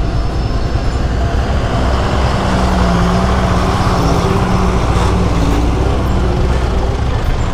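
Heavy diesel dump truck and motorcycle engines running in slow, close traffic, a steady engine hum whose pitch wavers slightly.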